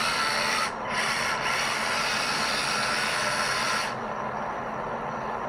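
LEGO Technic Liebherr R 9800 excavator's Powered Up electric motors whirring through its gear trains as the upper body slews round, with a brief break just under a second in. The motor noise stops about four seconds in, leaving a fainter steady noise.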